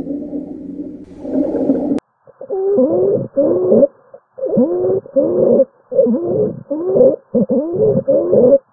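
Clinical auscultation recordings of abnormal continuous, musical breath sounds. A steady pitched tone holds for about two seconds; after a cut, a different recording follows of quick repeated breaths, each carrying a gliding musical tone.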